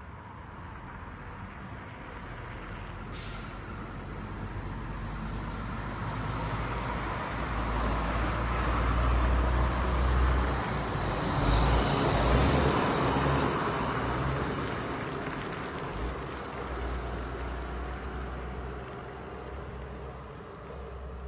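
Concrete mixer truck's engine and tyres going past, with a low rumble that grows louder to a peak about twelve seconds in and then fades away.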